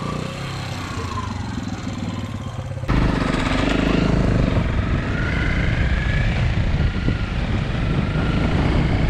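Vehicle engine running, with a sudden step up in loudness about three seconds in.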